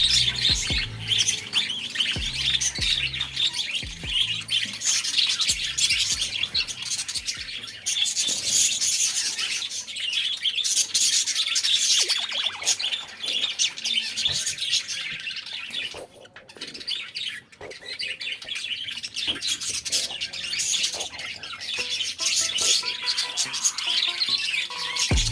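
Baby budgerigar chirping and chattering continuously in quick, high-pitched calls.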